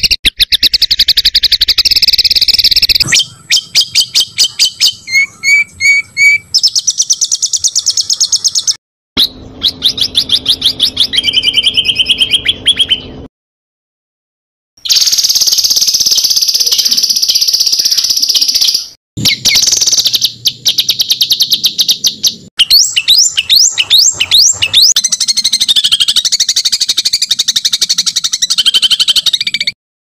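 Recorded songbird song spliced from several clips: rapid runs of sharp chip notes, trills and dense high warbling. Each clip cuts off abruptly, with a few brief silences between them. It is masteran, birdsong played to caged songbirds for them to copy.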